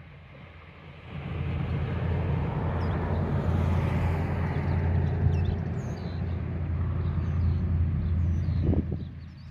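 A motor vehicle passing by: a steady low rumble that builds about a second in and fades near the end. Faint bird chirps sound above it.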